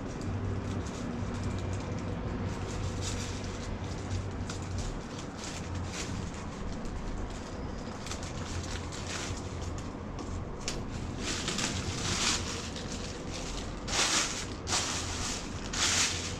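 Plastic bag sheeting rustling and crinkling as it is handled and cut with scissors, with several louder crinkling bursts near the end, over a steady low hum.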